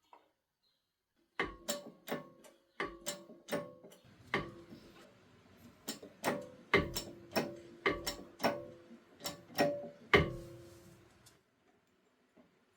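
Hammer blows on a built-up steel crankshaft as the pressed-together crank halves are knocked into line. There are about sixteen sharp strikes at uneven spacing, each leaving a short metallic ring, and the last is the loudest.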